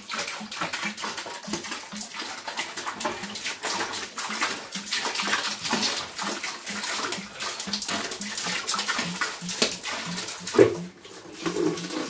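Water from a central-heating circuit pouring out of an opened pipe connection into a bucket, splashing steadily with a regular low glugging pulse. The system is being drained so the expansion vessel can be swapped. A short thump comes near the end.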